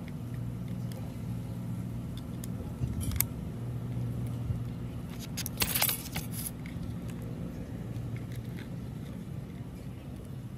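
Small metal clicks and scrapes as a screwdriver works in an angle grinder's carbon-brush holder, with a short rattle of small parts about six seconds in. A steady low hum runs underneath.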